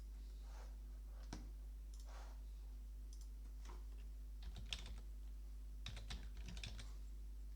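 Scattered clicking on a computer keyboard and mouse: a single click about a second in, then short flurries of clicks in the middle and near the end, over a steady low electrical hum.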